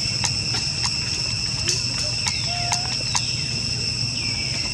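Steady, high-pitched drone of a daytime insect chorus, with scattered sharp clicks and a few short falling calls over it.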